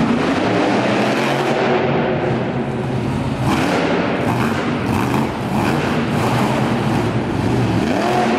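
Monster truck engine running and revving hard as the truck drives across a dirt arena floor, surging repeatedly in the middle and climbing in pitch near the end, with arena music underneath.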